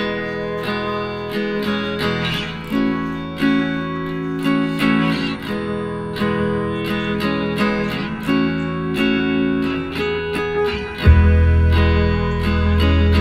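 Background music: acoustic guitar, plucked and strummed, with a deep bass coming in about eleven seconds in.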